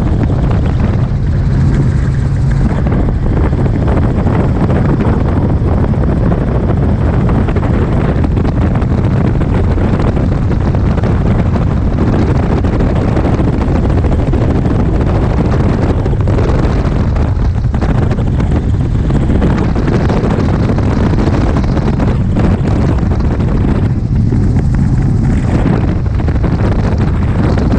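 Helicopter in flight, heard from inside: steady engine and rotor noise mixed with wind buffeting the microphone at the open door.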